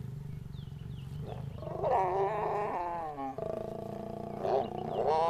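Lions growling and snarling: a low rumble, then loud, drawn-out, wavering calls starting about a second and a half in, with another beginning near the end.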